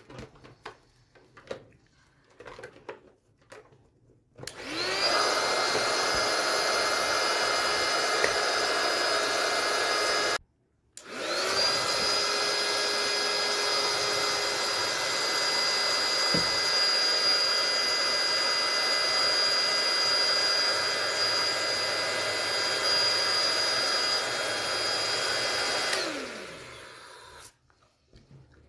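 Electric balloon pump running with a steady motor whine as it inflates a latex balloon. It starts about four seconds in, cuts out for half a second, runs again for about fifteen seconds, then winds down with falling pitch. Before it starts there are small clicks and rustles of balloons being handled.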